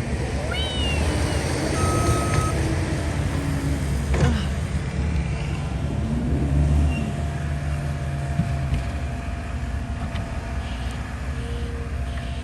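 Heavy snowplow truck engine running close by as it manoeuvres in the street, a steady low rumble. Brief high squeals come about half a second in, and a short high tone follows around two seconds.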